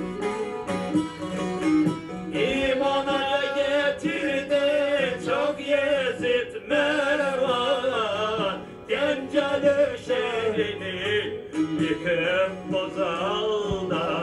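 Music for a semah: a plucked bağlama (Turkish long-necked lute) playing a steady rhythmic accompaniment, joined about two seconds in by a voice singing a wavering, ornamented melody.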